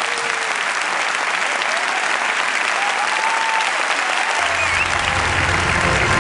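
Large audience applauding steadily, with a few faint voices calling out over the clapping.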